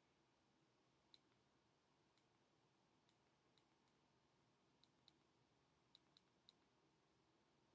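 About ten short, sharp clicks at irregular intervals, small hard plastic parts of a Black Diamond Cosmos headlamp clicking as it is handled during disassembly. Between the clicks, near silence.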